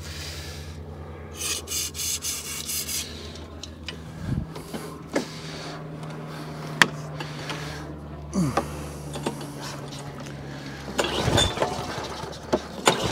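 Hayter 48 rotary mower's petrol engine running steadily at a low hum, then cutting out about eleven seconds in, which the owner puts down to lost spark. There is a brief scratchy rustle early on.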